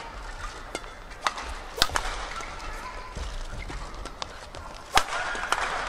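Badminton rally: sharp cracks of rackets striking the shuttlecock, the loudest about two seconds in and about five seconds in, with short squeaks of shoes on the court mat.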